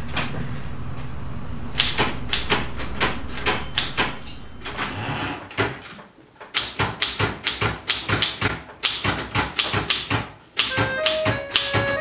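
Manual typewriter keys struck in quick, irregular runs of sharp clacks, with a brief lull midway and another short pause just before the end. A low steady hum sits under the first couple of seconds, and accordion-like music starts to come in near the end.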